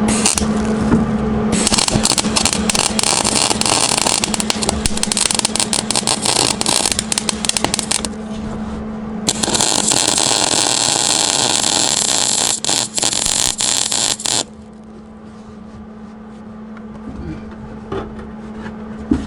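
MIG welder arcing in two runs of several seconds each, a dense crackling hiss full of sharp pops, with a steady low hum underneath that carries on after the welding stops.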